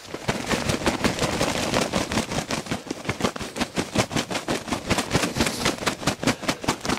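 Quick footsteps through tall grass, a rapid, even run of swishes and crunches about four or five a second, starting suddenly.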